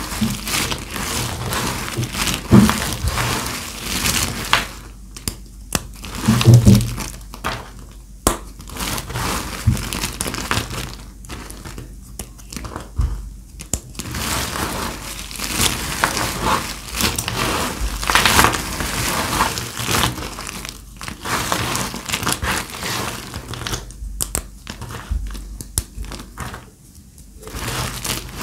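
Dry glam soap being cut and crushed, giving dense crunching and crackling with short pauses between cuts. A few louder thumps come in the first few seconds.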